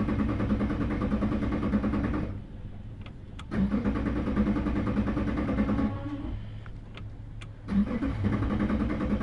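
A new outboard engine being cranked by its electric starter in three bursts of two to three seconds each, turning over without catching: the fuel line has not yet been primed with the bulb.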